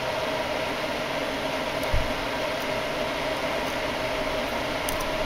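A steady whirring background hum, with a soft low thump about two seconds in and a few faint clicks near the end.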